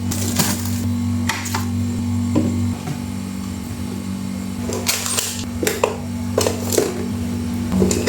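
Steady low hum with scattered short knocks, clatters and rustles, like items and containers being handled and set down while a refrigerator is cleaned; the handling sounds are busiest about five to seven seconds in.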